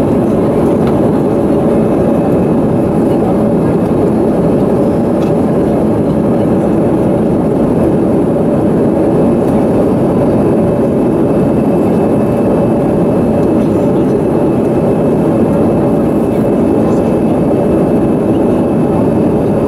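Steady cabin noise of an easyJet Airbus A320-family jet climbing out after takeoff, heard inside the cabin over the wing: the engines and rushing air make an even noise with a steady hum.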